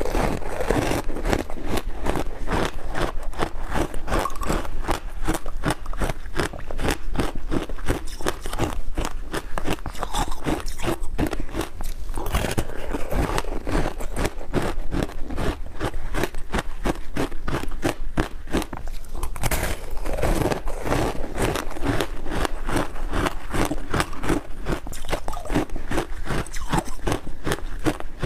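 Close-up crunching and crackling of a frosty compressed ice block being bitten and chewed, a dense run of rapid crisp crunches that goes on without a break.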